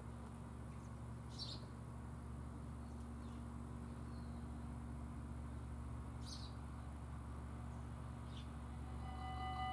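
Quiet rural background with a steady low rumble and a few short bird chirps. Near the end the level crossing's warning bell starts ringing and quickly grows louder, signalling that a train is approaching.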